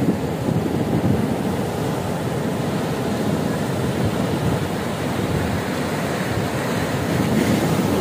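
Sea waves breaking and washing up a sandy shore among rocks: a steady rushing surf, with wind buffeting the microphone. A somewhat louder wash near the end.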